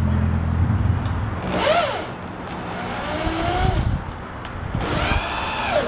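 Cordless drill working into a pressure-treated post: the motor runs steadily at first, then twice whines up and back down in pitch as the trigger is squeezed and let go.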